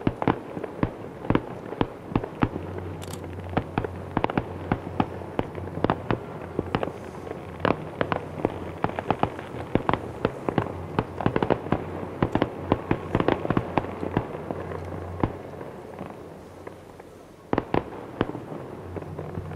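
Fireworks display: a dense, irregular barrage of sharp bangs and crackling reports, several a second, over a steady low hum. The barrage thins out about 16 s in, then a loud bang near the end starts it again.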